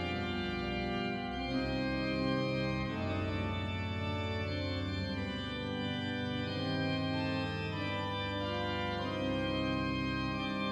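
Sampled pipe organ (Hauptwerk virtual organ voiced with the Saint-Maximin organ, recorded pipe by pipe) playing a French Baroque prelude in sustained chords that shift every second or two.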